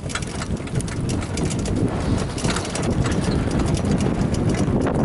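Hoofbeats of a standardbred trotter, a run of quick clip-clops, over steady wind rumble on the microphone.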